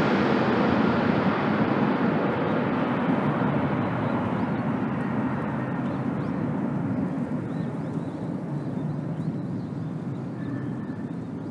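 Jet airliner rolling out on the runway after touchdown: a steady rush of engine noise that slowly fades and grows duller as the plane moves away.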